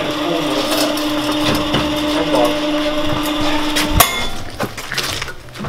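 A steady mechanical hum with a grinding edge for about four seconds. It cuts off with one loud metallic clank that rings briefly, as metal parts are worked loose under a car's stripped front end.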